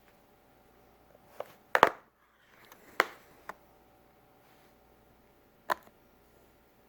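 Sharp plastic clicks and snaps, five or six over several seconds, the loudest a close pair near two seconds in and another about three seconds in: the clips of a Samsung tablet's back cover popping loose as a pry tool is run around the seam.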